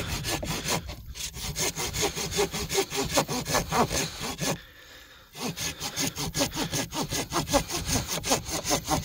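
An 18 cm carbon-steel SGS folding pruning saw cutting through a branch about 5 cm thick with quick back-and-forth strokes. There is a brief pause about halfway through.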